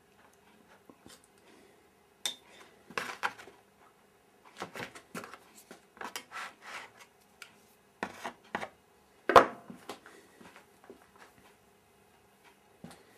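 Steel long-nose pliers handling a steel part in a plastic tub of cold-bluing bath: irregular metal clinks, scrapes and rubs, with one louder knock about nine seconds in.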